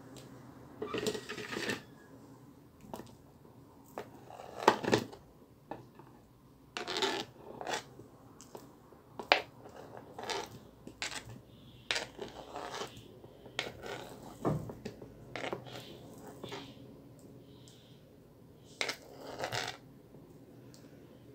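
Knife scraping and tapping on a plastic cutting board as sliced banana is pushed off into a plastic bowl: irregular short scrapes and knocks, one every second or two.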